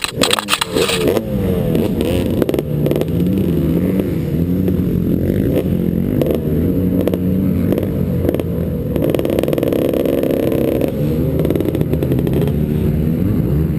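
Two-stroke motocross bike engine, a 2008 Suzuki RM250, running hard with its pitch rising and falling repeatedly as the throttle opens and closes.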